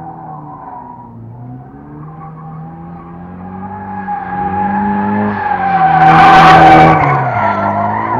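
A car drifting past: its engine revs rise and fall with tyres squealing, getting louder to a peak as it passes close about six seconds in, then fading.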